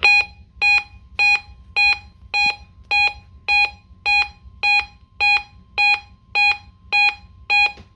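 A NOAA weather radio receiver's alert alarm beeping, triggered by a weekly test broadcast: short, shrill multi-tone beeps repeating a little under twice a second, with a faint steady tone underneath.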